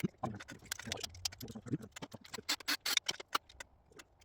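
Irregular metallic clicks and knocks of hand tools and engine parts being handled while work goes on at the timing chain end of a Honda K24A engine, during the change of the chain tensioner and guides.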